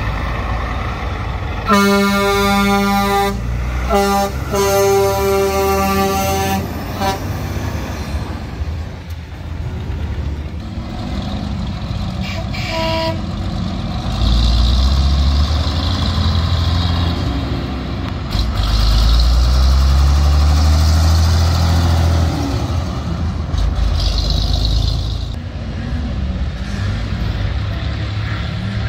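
Deep truck air horn blown in two long blasts, about two and four seconds in, with a brief toot around halfway. Then the heavy diesel engines of big trucks rumble loudly as they pull past, twice in the second half.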